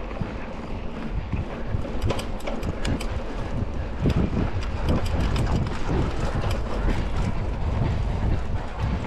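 Wind buffeting the microphone of a mountain bike rider on the move, with a steady low rumble and many scattered sharp clicks and rattles from the bike over rough ground.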